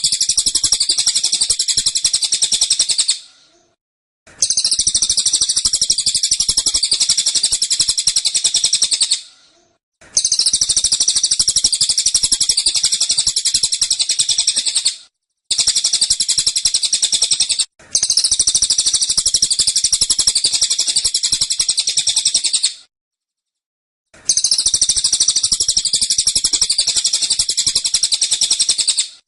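A cililin songbird singing 'tembakan': long bursts of very rapid, dense, high-pitched chattering notes, each lasting several seconds, with short breaks of silence between, about six bursts in all.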